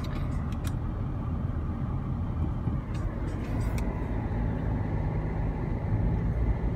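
Steady low rumble of a moving car's road and engine noise heard from inside the cabin, with a few faint clicks about three seconds in.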